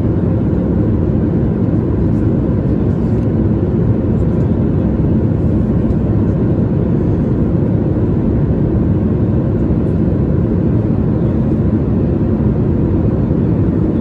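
Steady cabin noise inside a Boeing 737 MAX 9 airliner in flight: a constant loud rumble of airflow and engines, with a faint steady hum.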